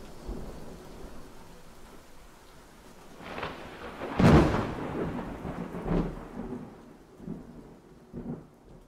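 Thunderstorm: steady rain with rolling thunder. The loudest thunderclap comes about four seconds in, with smaller rumbles before and after it.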